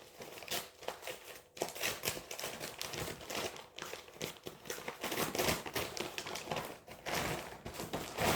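Parcel packaging crinkling and rustling in irregular bursts as it is torn open and handled to get at the clothing inside.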